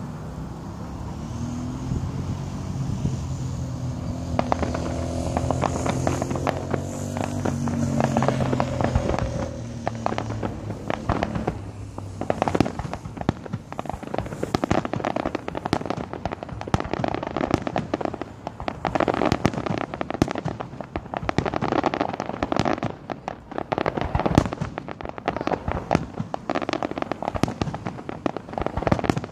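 Fireworks going off in quick succession: many sharp bangs and crackles, coming thick and fast from about twelve seconds in. A steady low drone runs underneath and stops about twelve seconds in.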